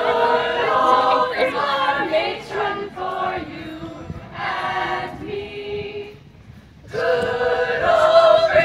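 An a cappella group singing in harmony, several voices holding long notes together. The singing fades almost away about six seconds in, then comes back louder.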